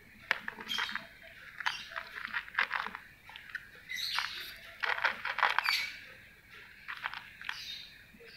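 Angora cat eating dry kibble from a plastic bowl: crisp crunching in bursts a second or two long, separated by short pauses.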